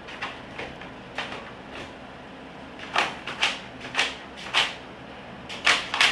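A series of irregular sharp knocks and clacks, a few light ones first, then louder and closer together from about halfway, bunching up near the end.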